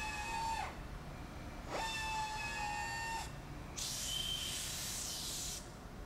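Power tapping drill's electric motor whining as it drives a tap into the drilled holes in the cast iron. Each whine rises in pitch as it spins up, holds steady and falls away as it stops, twice. Then a hiss of compressed air lasts about two seconds.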